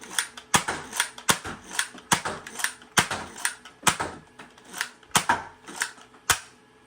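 Nerf Elite 2.0 Trailblazer blaster being cocked and fired in quick succession: a string of sharp plastic clacks from the hammer and dart launches, about three a second, stopping about six seconds in.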